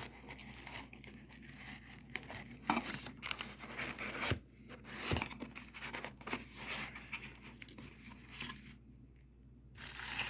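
Packaging being handled and pulled open, with irregular crinkling, rustling and tearing and a few sharp crackles. It dies down briefly near the end.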